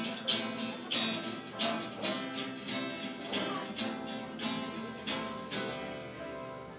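Acoustic guitars strummed in a steady rhythm, about two strums a second, in an instrumental passage without singing. The playing eases off a little toward the end.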